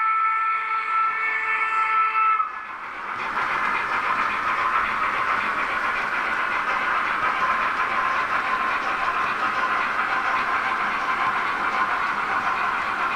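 Sound-decoder steam whistle of an H0 Roco class 50 model steam locomotive blowing a steady chord of several tones, cutting off about two and a half seconds in. After it comes a steady rolling rattle of the model freight wagons' metal wheels on the track.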